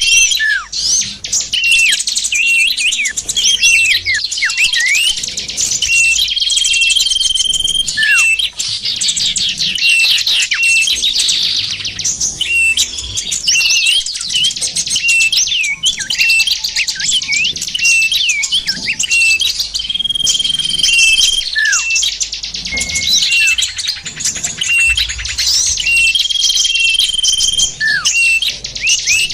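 Dense, continuous chirping and twittering of small songbirds, played as a bird-trapping lure call. A short, steady high whistle note and a quick falling chirp come back every several seconds within the busy chatter.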